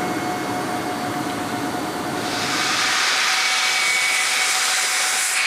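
Airliner cabin noise: a steady engine drone with a faint steady whine, then about two seconds in a louder rushing hiss comes in and holds.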